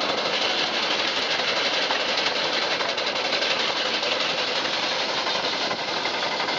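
Scale-model Case steam traction engine running, its steam exhaust giving a fast, even chuffing clatter with a steady hiss.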